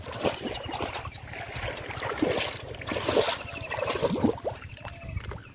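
Shallow river water splashing and gurgling in short, irregular sloshes, as of hands and body moving through it.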